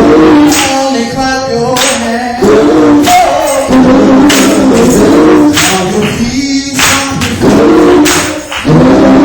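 Gospel song sung loudly with a tambourine keeping the beat. A voice holds long notes and is struck through with repeated tambourine jingles.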